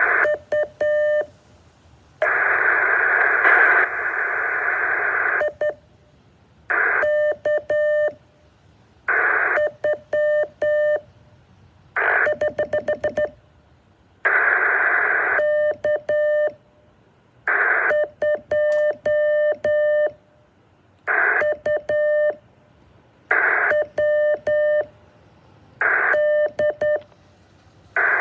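Morse code keyed as a buzzy tone of about 600 Hz, sent in short groups of dots and dashes. Each group starts with a brief burst of hiss, and longer stretches of hiss come twice.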